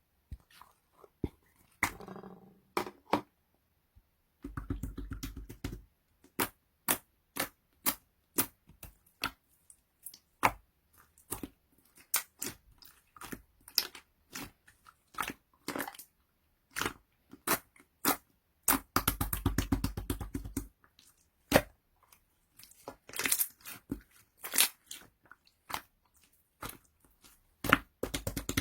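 Clear, jelly-textured slime being squished and poked by hand, making an irregular string of sharp wet clicks and pops. Two quick runs of crackling clicks come about five seconds in and again about twenty seconds in.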